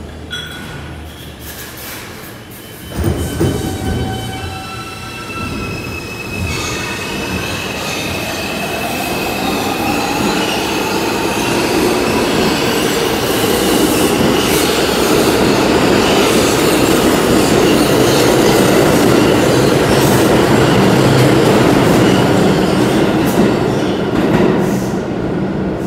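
New York City Subway train on the far track pulling out and picking up speed. A rising motor whine and squealing wheels sit over a rumble that keeps building, with a clunk about three seconds in. The noise eases slightly near the end as the train clears.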